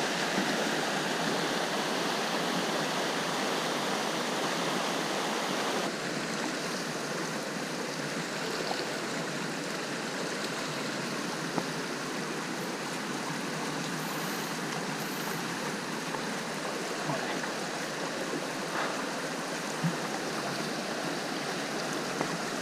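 River water flowing steadily, an even wash of noise that drops a little in level about six seconds in, with a few faint knocks.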